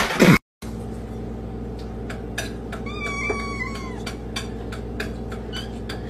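A brief loud clatter at the very start, then a cat meows once about three seconds in, a short call that bends in pitch, over a steady low hum and scattered light clicks.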